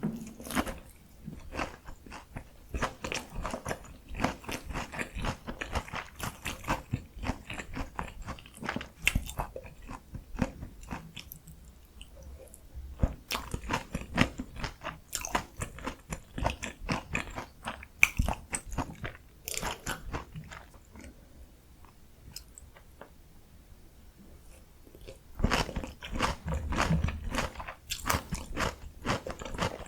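Close-miked biting and chewing of a breaded, deep-fried Korean pork cutlet, the crust crunching and crackling in dense runs, with quieter stretches of softer chewing between bites.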